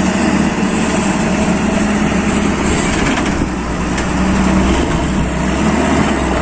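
Hino 500 dump truck's diesel engine running steadily with a low rumble as the loaded truck pulls slowly forward.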